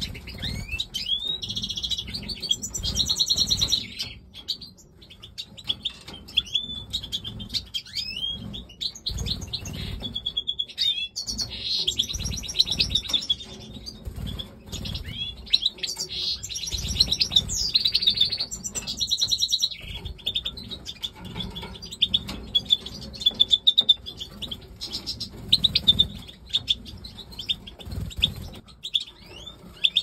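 Major goldfinches twittering and singing, with rapid chirps and liquid trilling phrases in bursts and a quieter stretch about four to nine seconds in, plus wing flutters as the birds fly between perches.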